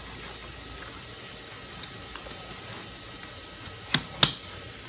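Two sharp clicks about a third of a second apart near the end, from the plastic fittings of a black rolling nail bag being handled, over a steady hiss.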